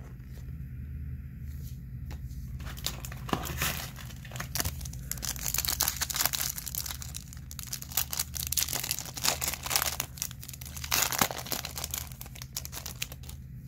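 Foil wrapper of a Topps Chrome card pack being torn open and crinkled by hand. It starts about two and a half seconds in and goes on as a dense run of crackles and rips until near the end.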